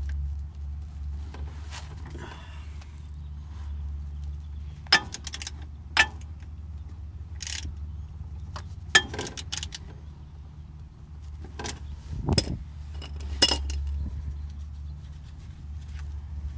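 A spin-on oil filter is turned by hand on the engine, with a handful of sharp metallic clicks and clinks, the loudest about 9 and 13 seconds in, over a steady low hum.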